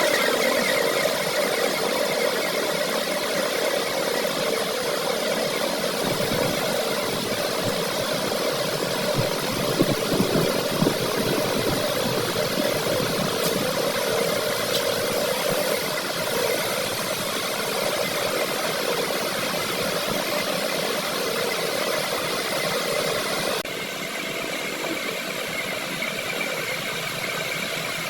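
Metalworking lathe running steadily with a constant motor and gear hum, with a few sharp knocks about ten seconds in. The sound changes abruptly near the end.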